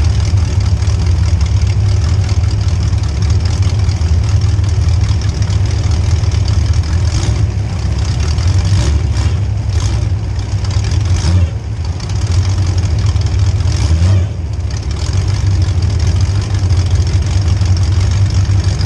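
Demolition derby car's small-block Chevy V8 running loud and steady, heard from inside the car, with two brief drops in level a little past the middle.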